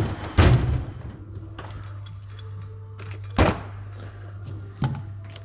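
Drawers of a metal rolling tool chest sliding open and shut, with a few sharp knocks and a clatter of steel tools, over a steady low hum.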